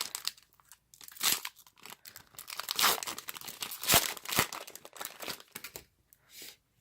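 A trading-card pack's wrapper being torn open and crinkled, in irregular crackling bursts that are loudest about three and four seconds in.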